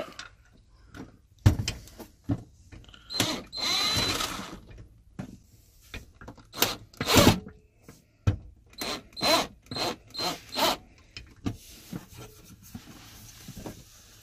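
Cordless Chicago Electric drill driving a toilet paper holder's mounting screw in several short runs, its motor whining briefly each time, with sharp knocks and clicks in between.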